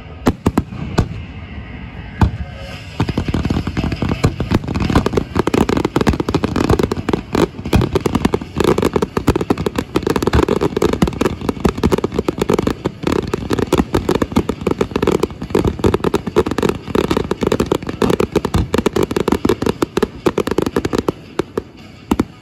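Aerial fireworks bursting: a few separate bangs in the first couple of seconds, then a dense, rapid-fire barrage of booms that runs on and stops suddenly near the end.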